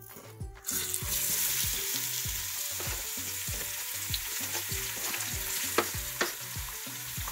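Sliced onions hitting hot oil in an aluminium pot and sizzling. The sizzle starts suddenly under a second in and holds steady, with a few sharp clicks as they are pushed off the cutting board.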